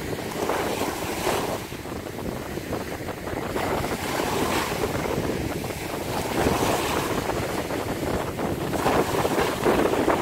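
Wind gusting over the microphone, with small waves washing in the shallow lagoon. The rushing noise swells and eases every second or two.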